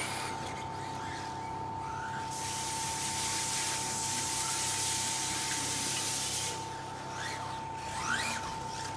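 4WD electric RC buggies running on a carpet track: a steady hiss of motors and tyres, with short rising motor whines near the end as a buggy accelerates close by.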